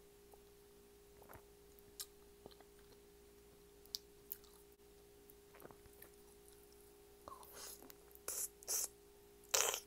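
Close-miked mouth sounds of biting and sucking into raw honeycomb: wet, sticky smacks in short bursts, starting about seven seconds in and getting louder, the loudest at the very end. Before that, a few faint clicks as fingers pick at the sticky comb, over a steady low hum.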